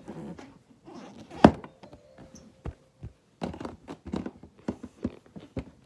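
A single loud thump about a second and a half in, followed by a string of lighter knocks and taps close to the microphone, like things being handled and set down.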